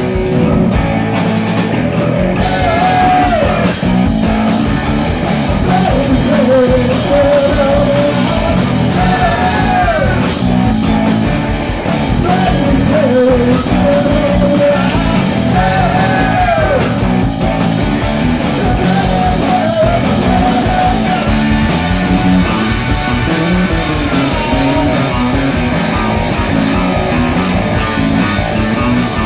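A rock band playing, with a voice singing over the band.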